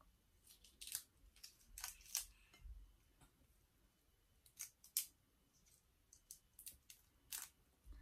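Shrimp shells being peeled off by hand: faint, irregular crackling clicks as the shells snap and tear away.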